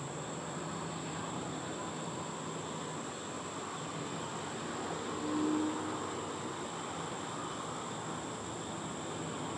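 Steady outdoor background: a constant high-pitched insect drone over a low, even rumble like distant traffic, with one brief low tone about five and a half seconds in.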